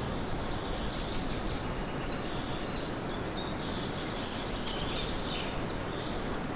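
Birds chirping and twittering high over a steady rushing hiss of outdoor ambience.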